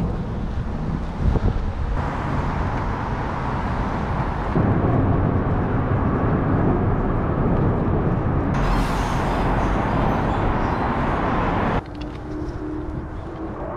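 City street ambience with road traffic going by, a steady noisy hiss and rumble. It changes character abruptly several times, every two to four seconds.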